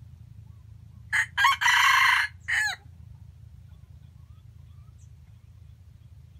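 A jungle-fowl rooster crowing once. The crow lasts under two seconds and breaks into two short notes, a longer held note and a short final note that falls in pitch.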